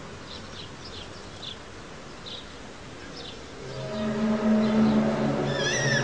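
Scattered high bird chirps, then about four seconds in a loud, low, steady droning hum swells up, joined near the end by a wavering, wailing higher tone: the unexplained 'strange sound from the sky' that the recording was posted to capture.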